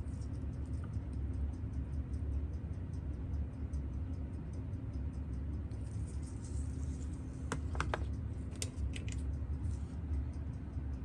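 A small metal tool clicks a few times against the watch, in two quick groups about two thirds of the way in, over a steady low hum and a faint, fast, even ticking.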